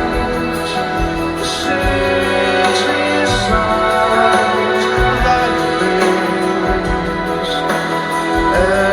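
Live rock band playing a slow song: held chords over a slow drum beat with cymbal hits, and a man singing.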